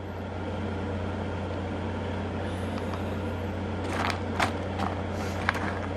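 A steady low hum throughout, with a few light clicks and scrapes of opal-bearing rock chunks being moved by hand in a plastic gold pan, mostly in the second half.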